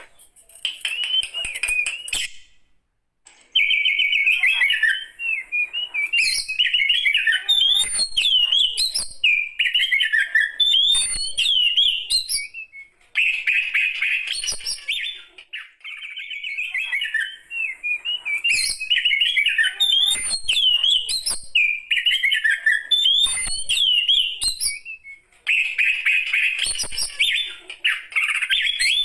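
Oriental magpie-robin (kacer) singing long, varied phrases of quick rising and falling whistles mixed with dense chattering notes, with short pauses between phrases.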